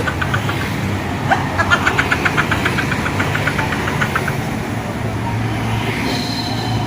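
A vehicle engine running steadily, with a fast run of short, high-pitched beeps, about five a second, for a few seconds in the first half.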